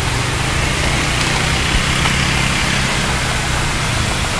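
An engine idling steadily, a low even hum under a steady hiss.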